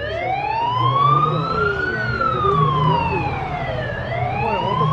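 Tatra 815 fire engine's siren wailing. It starts suddenly, then sweeps slowly up for about two seconds and down for about two seconds, and begins rising again near the end.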